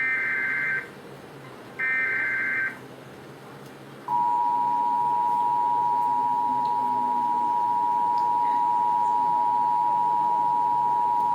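Emergency Alert System broadcast tones: the last two SAME header data bursts, each a harsh digital screech under a second long, about a second apart, then about four seconds in the steady two-tone EAS attention signal comes on and holds. Together they mark the start of an emergency alert.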